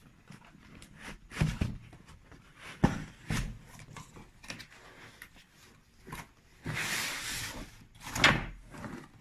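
Unboxing handling sounds: scattered knocks and thuds of items being handled in a cardboard box, with a rustle of packaging lasting about a second a little before the end and a sharp knock just after it.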